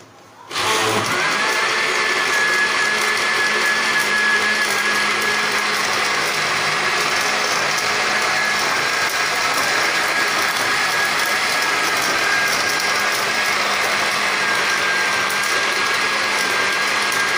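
Electric blender switching on about half a second in and running steadily, its motor whine climbing quickly to a high pitch and then holding, as it grinds falsa berries with sugar and black salt into sharbat.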